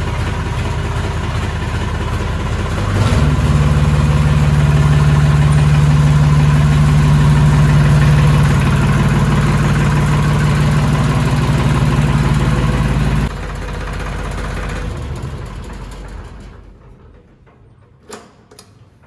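Tractor's diesel engine running, raised to a higher speed about three seconds in and held there. About thirteen seconds in it drops back suddenly, then dies away over a few seconds as it is switched off, leaving two faint clicks near the end. It has been running to recharge a flat battery after a push start.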